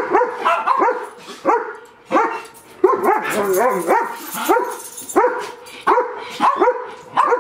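Small dogs barking repeatedly, short high barks coming about one or two a second, sometimes overlapping.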